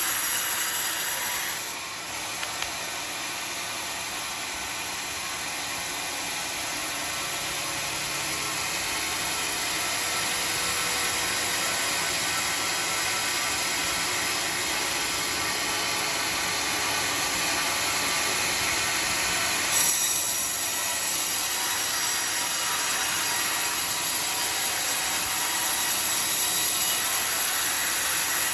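Homemade band sawmill's blade cutting through a teak log: a steady, high-pitched whining rasp. It dips about two seconds in, builds slowly, and changes tone about twenty seconds in.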